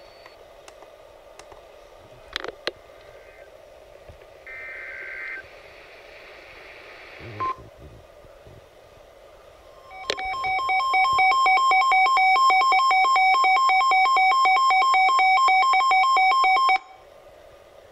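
Emergency alert signalling on a weather radio broadcast. A few clicks, then a second-long burst of warbling data tones (the alert's digital header). From about ten seconds in, a loud, rapidly pulsing two-tone alert beeps for about seven seconds and cuts off suddenly, announcing a flash flood warning.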